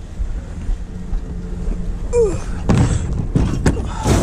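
Plastic storage tote being handled and picked up: a run of hollow knocks and thuds from its lid and loose contents, bunched in the second half.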